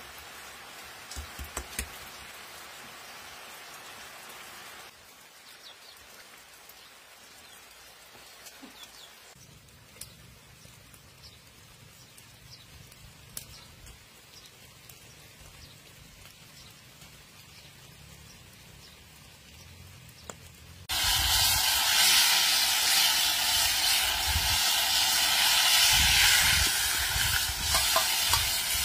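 A soft steady hiss with a few light clicks, then about two-thirds of the way through a loud frying sizzle starts suddenly and holds: whole fish frying in hot oil in a large metal pan over a wood fire.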